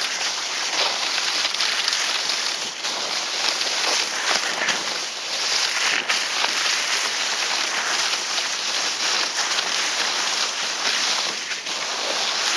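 Dog sledge runners hissing and scraping steadily over snow as the team pulls it along, with a few sharp knocks and rattles from the sledge frame as it jolts.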